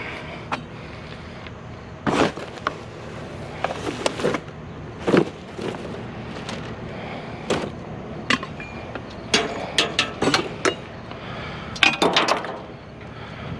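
Clanks and clatters of scrap metal and plastic junk being handled and sorted: a dozen or so sharp knocks at uneven intervals, some in quick clusters of three or four.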